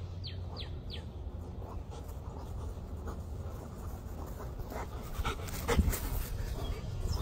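A dog panting, with a few short chirps in the first second and several sharp knocks about two-thirds of the way through.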